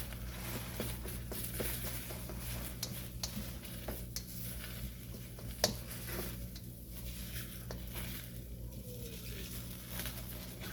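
Eggs being stirred and scrambled in a hot wok: a utensil scraping and tapping against the pan, with a light sizzle of frying and one sharper knock a little past halfway. A steady low hum runs underneath.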